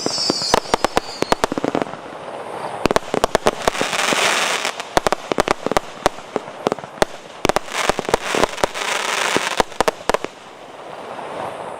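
Multi-shot firework cake firing: a rapid, uneven series of sharp bangs, several a second, with two swells of crackling. A short falling whistle sounds at the start, and the bangs thin out near the end.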